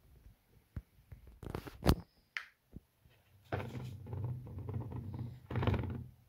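Baking soda being poured into an empty plastic cola bottle: a few knocks and a short squeak of handling, then from about three and a half seconds in a steady rushing hiss of the powder sliding into the bottle.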